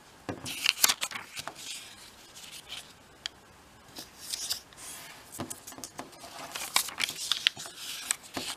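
Small sheet of origami paper being folded by hand: sharp paper crackles and clicks as the creases are pressed flat, with soft rubbing swishes of fingers running along the folds. The sound is busiest about a second in and again near the end.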